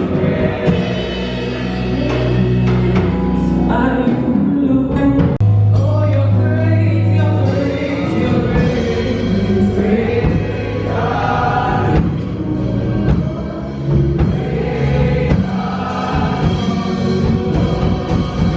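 Gospel choir singing a worship song over held bass and keyboard notes.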